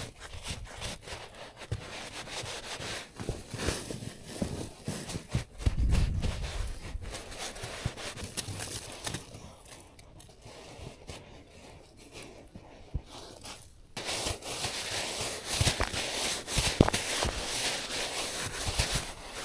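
Irregular rustling, scraping and crackling handling noises, with a louder low thump about six seconds in. From about fourteen seconds the sound turns into a denser, brighter hiss.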